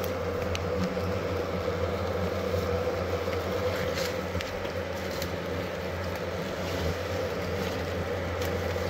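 Steady buzzing of a mass of disturbed hornets around their opened ground nest, with a few faint clicks.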